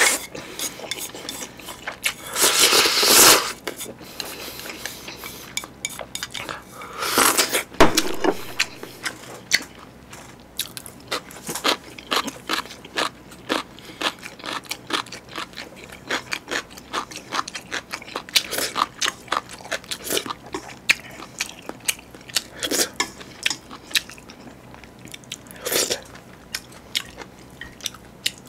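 Close-miked eating sounds of a person eating chewy spicy jjolmyeon noodles. There are two long loud slurps, about two seconds in and around seven seconds in, then wet chewing with many small mouth clicks and a few shorter slurps.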